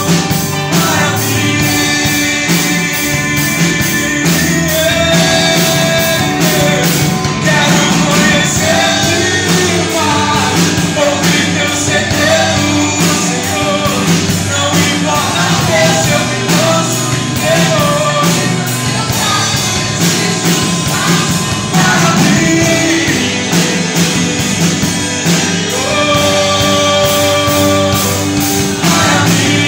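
A man singing a Portuguese-language worship song into a microphone, backed by a live band with bass guitar, electric guitar and keyboard.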